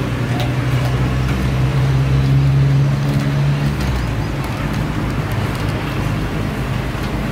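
Road traffic with a motor vehicle's engine running close by. Its low hum is strongest in the first few seconds and then fades into the general traffic noise.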